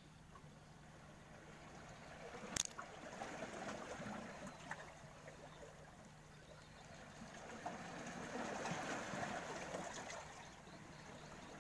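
Faint wet handling sounds as a hook is worked out of a small grouper's mouth by hand, with one sharp click about two and a half seconds in.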